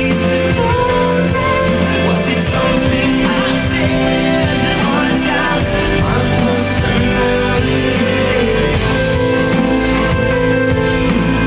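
Music: a song with a singing voice over steady instrumental backing.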